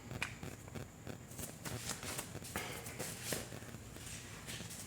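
Faint handling noise of a pair of Southwire multi-tool pliers, with a few light clicks spread through as the tool is moved and worked.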